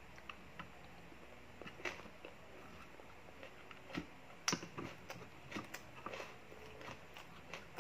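Someone eating rice and fish with their fingers, with scattered soft clicks and mouth smacks of chewing and handling the food. The sharpest click comes about four and a half seconds in.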